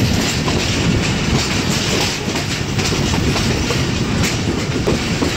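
Passenger train running at speed, its wheels clattering steadily over the rail joints, with occasional sharper clacks.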